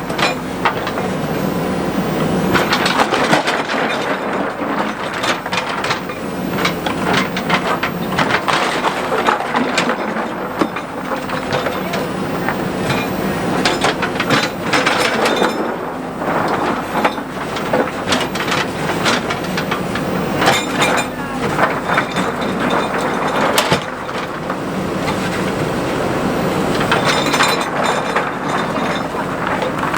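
Backhoe loader's diesel engine running steadily while the machine works, with irregular clattering and knocking throughout.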